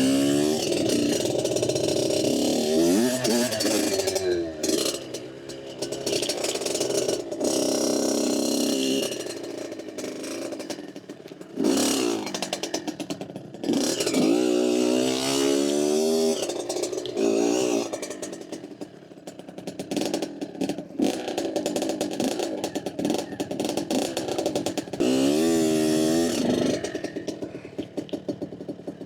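Dirt bike engine being ridden, revving up and easing off again and again, its pitch climbing and dropping with the throttle.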